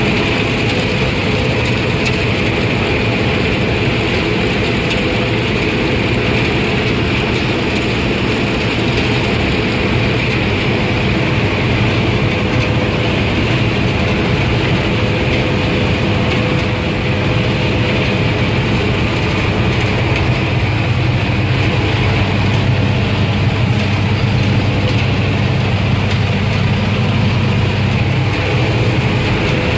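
Claas Mercator 75 combine harvester running steadily under load while harvesting barley, heard from inside the cab: a constant loud mechanical drone of engine and threshing machinery, with a low hum and a higher whine.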